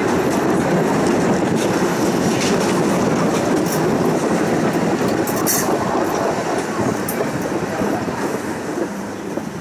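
Tram rolling along its rails: a steady rumbling noise of wheels on track with faint clicks, a brief high-pitched wheel squeal about halfway through, and the noise easing slightly near the end.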